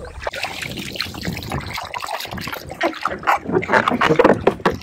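Water splashing and trickling from kayak paddling, an irregular run of small splashes and drips that grows louder a few seconds in.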